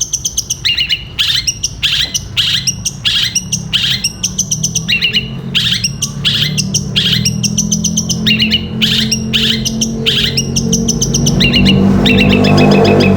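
Long-tailed shrike (cendet) singing in the 'gereja petir' style: a fast, unbroken run of sharp, sparrow-like chirps, about two to three clusters a second. A low hum sits beneath and grows louder near the end.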